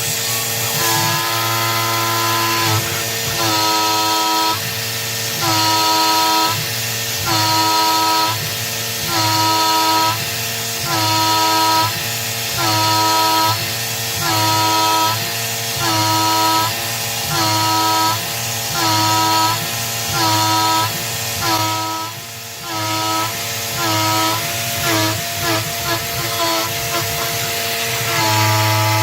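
CNC-converted PM-25 milling machine taking repeated side-milling passes with a 3/8" three-flute carbide end mill. The stepper motors whine in blocks about once a second as the table moves back and forth, over a steady spindle hum and the constant hiss of the mist coolant.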